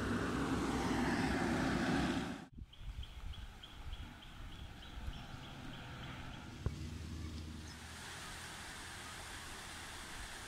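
Roadside outdoor background: a vehicle going by for the first couple of seconds, then a quieter steady hum of traffic and open air with a short run of faint high ticks, about three a second.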